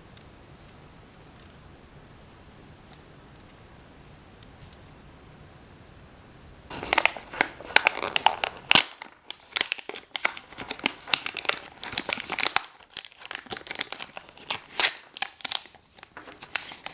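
Crinkly plastic packaging being handled and torn open by hand, starting about seven seconds in with a quick, irregular series of crackles and rips. Before that there is only a faint hum and a single small click.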